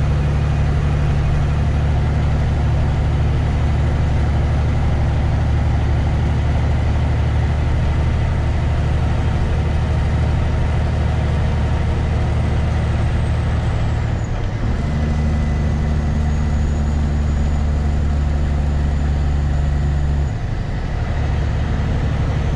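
Semi truck's diesel engine running steadily under way, a loud low drone. Its note changes about two-thirds of the way through and dips briefly near the end.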